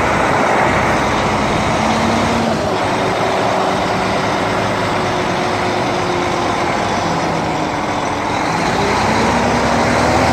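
Diesel engine of a concrete pump truck running steadily, with a loud, constant engine noise.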